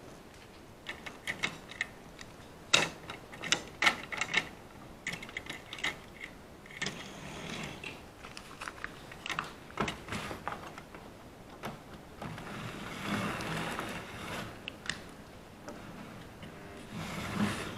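Model railway trains on the track: sharp clicks and clatter of small locomotives and wagons being handled and run, with a small electric motor whirring in the second half.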